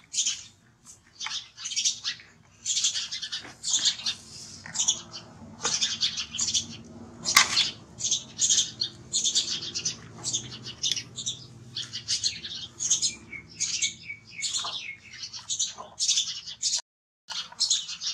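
High-pitched animal chirps and squeaks, several a second, going on without a break, then cutting out for a moment near the end.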